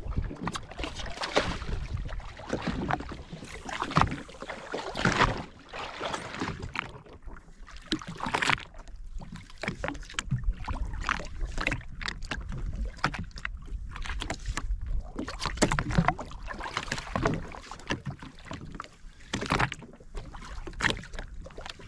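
Sea water slapping and splashing against the hull of a drifting jet ski, in uneven surges.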